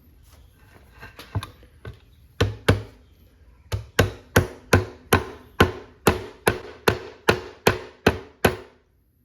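A series of sharp knocks with a short ringing tone. A few come irregularly at first, then settle into a steady beat of about three a second and stop abruptly near the end.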